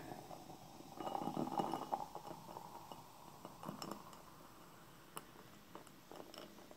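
Coca-Cola poured from an aluminium can into a tall glass: the stream of cola splashes and fizzes as the foam head rises, loudest early in the pour and fainter after. A few light clicks come through toward the end.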